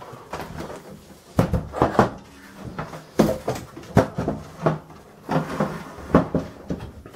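Sam4S ER-180U cash register's plastic housing being turned round on a tabletop: a series of about eight knocks and thumps with scraping between them.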